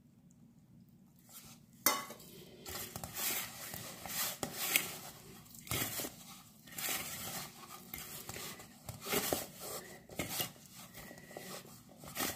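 Hand mixing wheat flour and water into dough in a stainless steel bowl: irregular scraping and rubbing of the dough against the metal, with scattered knocks on the bowl. It starts about two seconds in with a sharp knock.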